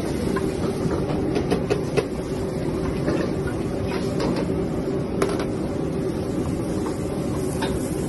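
Stir-frying in a wok at a commercial kitchen range: a steady loud rushing noise with a hum running under it, and scattered clinks and scrapes of the metal spatula against the wok.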